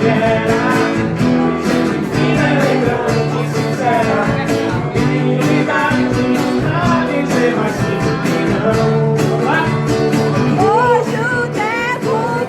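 Music: a song with guitar over a steady beat, a singing voice coming in near the end.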